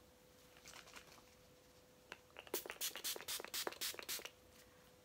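Pump-action Vitamin E face mist bottle sprayed at the face: a quick run of about a dozen short spritzes over roughly two seconds, starting a couple of seconds in.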